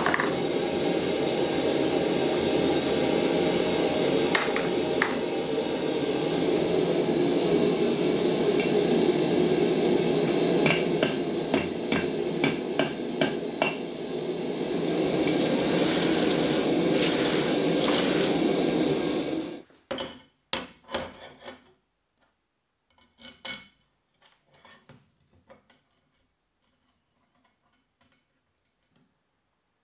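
Gas forge burner running with a steady rush while a hammer strikes hot steel: a couple of blows, then a quick run of about eight. The rush cuts off suddenly about two-thirds in, leaving light clinks of steel bars being handled on a workbench.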